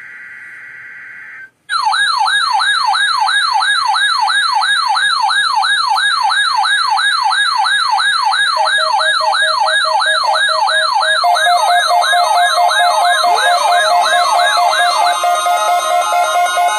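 Weather alert radios going off for a NOAA Weather Radio weekly test. A short burst of buzzing data tones comes first. About two seconds in, a loud warbling siren alarm starts, sweeping up and down about three times a second. A steady beeping tone joins about halfway through, and rising chirps and more beeping tones layer in near the end.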